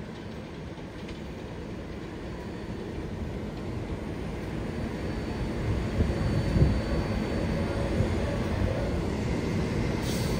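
New York City Subway R188 train on the elevated IRT Flushing Line running in over the steel structure, its rumble growing louder as it comes close. A few sharper knocks of wheels over the rails a little past halfway.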